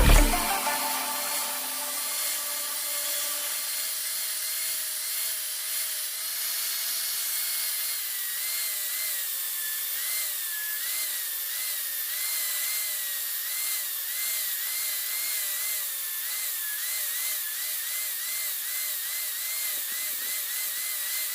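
Electric grinder running against steel, a steady grinding hiss under a whine that wavers up and down in pitch as the work is pressed against it.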